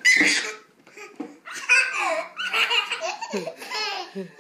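Babies laughing in repeated bursts: a loud laugh right at the start, then a run of shorter laughs through the rest.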